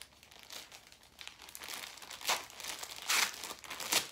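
Clear plastic bags crinkling as they are handled and opened, with a few louder crackles in the second half.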